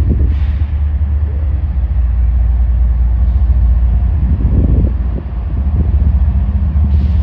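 Diesel freight locomotive engine running with a steady deep rumble as the train moves slowly, with a few heavier rough patches about four to five seconds in.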